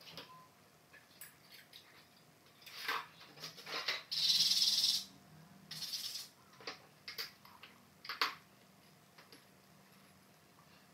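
Small mosaic tile pieces clicking and tapping as they are handled and set, with a brief scrape lasting under a second about four seconds in.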